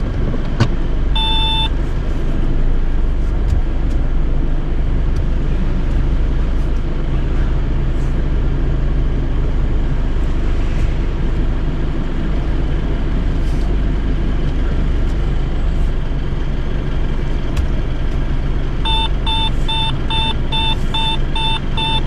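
Car running slowly with a steady low engine and cabin rumble. There is one electronic beep about a second in, and from near the end a steady run of beeps, about three a second, typical of a parking sensor as the car backs into a space.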